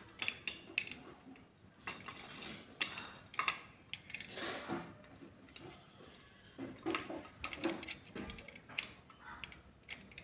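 Irregular metallic clicks and clinks of a welding electrode holder's metal jaw, screws and nuts being handled and fitted by hand.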